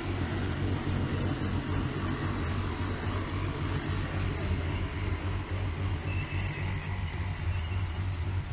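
Model train of two diesel locomotives pulling trailer-on-flatcar freight cars, passing close by. There is a steady engine-like rumble and the sound of wheels rolling on the track.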